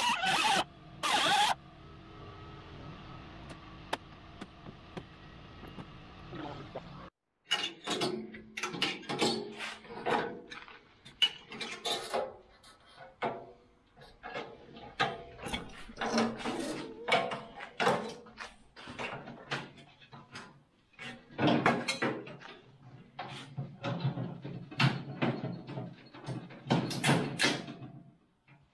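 A cut-off wheel grinding through the steel of a rusted truck door bottom in two short bursts, followed by a steadier, quieter whir. After a break, a long run of irregular clanks and rattles: sheet steel and tools knocking about as the old door bottom is worked loose and lifted off.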